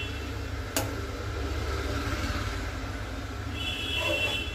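A ladle stirring simmering milk in a steel pan, over a steady low rumble. The ladle taps once against the pan about a second in, and a faint high squeal comes near the end.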